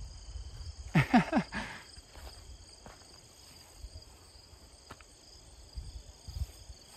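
Insects chirring in a steady high drone. A short voice sound comes about a second in.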